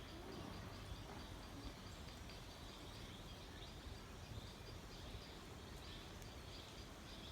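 Faint rural outdoor ambience: a low, steady background rumble with a fast, even, high-pitched chirping from a distant creature.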